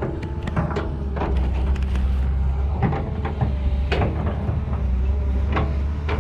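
Excavator running with a steady low hum, with irregular sharp clacks and knocks about a second apart as it works.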